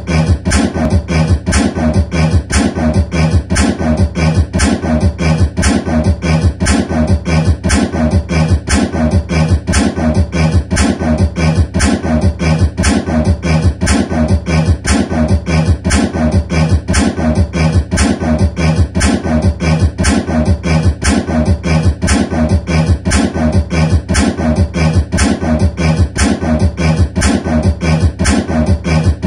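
Beatboxing into a handheld microphone: a fast, even beat of about four hits a second with a steady deep bass underneath, kept up without a break.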